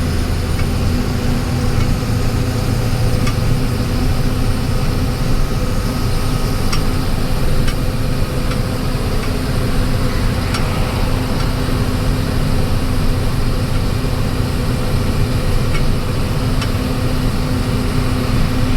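A vehicle driving along at steady speed: a constant engine hum with low rumbling road noise.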